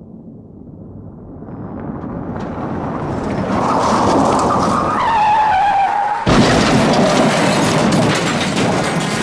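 Car crash sound effect: a car comes on with rising engine and road noise, and its tyres squeal in a skid from about three and a half seconds in. About six seconds in comes a sudden loud crash, and dense crunching noise follows.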